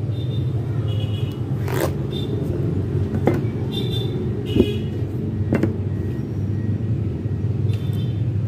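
A few light knocks as a long ruler and a flat metal pattern weight are set down and shifted on brown pattern paper, over a steady low background rumble.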